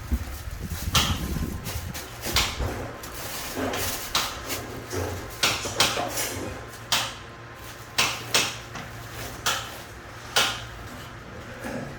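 Tile work: irregular sharp knocks and clatter of hard tools on tile, about one a second, over a steady low hum.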